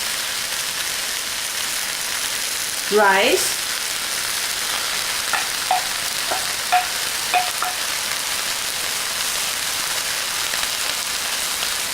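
Beef, onion, peas, scrambled egg and rice frying in hot oil, a steady sizzle. It is stirred, with a few short clinks between about five and eight seconds in.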